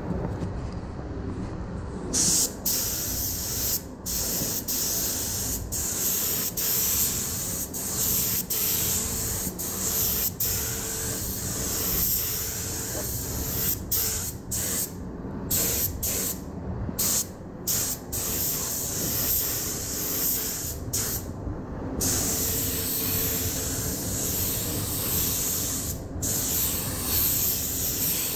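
Air paint spray gun hissing in repeated passes, starting about two seconds in and broken by many short gaps between passes.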